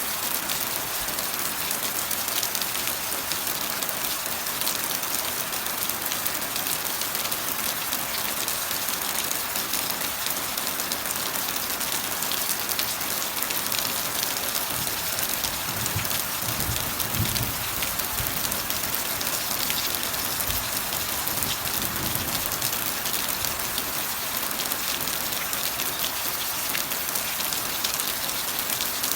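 Steady rain falling, a constant hiss of drops. For several seconds around the middle a low rumble rises and fades beneath it.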